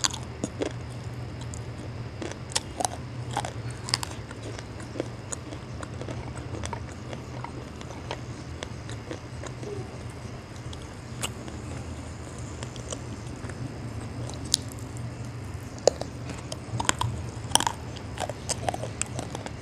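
Close-up bites and crunchy chewing of dry roasted multani mitti (Fuller's earth clay). Sharp cracking bites bunch up in the first few seconds and again near the end, with softer chewing in between.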